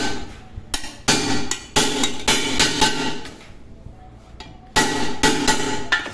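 Hammer blows on the metal base of a pressure cooker, each strike ringing, in two quick groups with a quieter gap of about a second and a half between them: the swollen bottom being beaten flat again.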